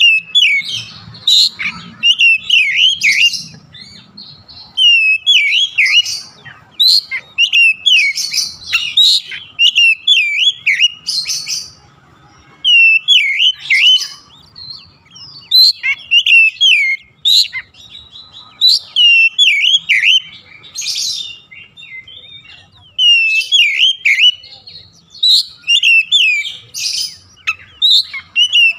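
Male Oriental magpie-robin in full song: long phrases of loud, rapid, sweeping whistled notes that dip and rise, broken by short pauses a few times.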